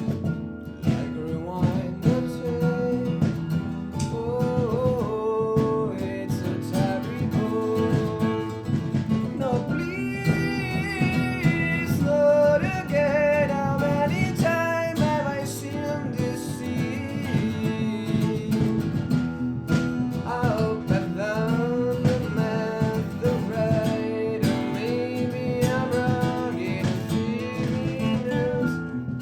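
Live acoustic band playing: strummed and plucked acoustic guitars, bass and percussion, with a wavering lead melody line over them.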